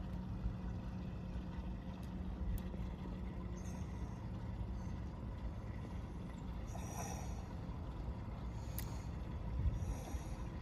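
Steady low motor hum over a background rumble, with a few faint short high-pitched chirps.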